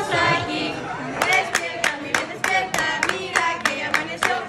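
Several voices singing together with hand clapping in time, about three claps a second, from about a second in: a birthday song sung at a restaurant table.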